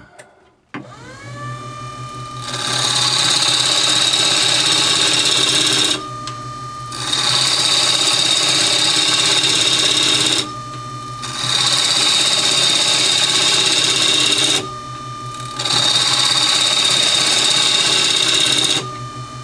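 Wood lathe starting up with a rising whine about a second in, then a gouge cutting the spinning oak blank in four long passes of loud cutting noise. Short gaps between passes leave only the lathe's steady hum. This is the blank being roughed round.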